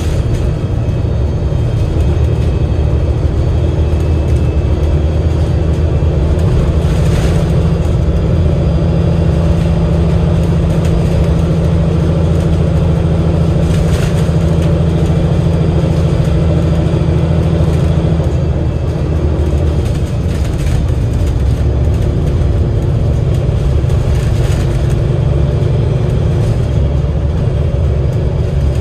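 Cummins L9 diesel engine and Voith automatic gearbox of an Alexander Dennis Enviro500 MMC double-decker bus running under way, heard on board as a steady low drone. A strong held tone runs through the first half and drops away about eighteen seconds in.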